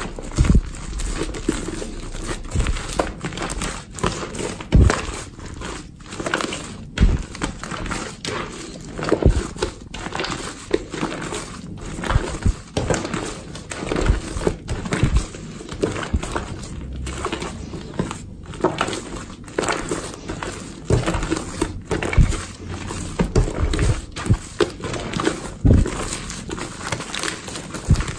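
Hands kneading and squeezing a large mass of foamy slime mixed with shaving foam, with continual irregular wet squelching and crackling and frequent soft low thumps as the slime is pressed and folded.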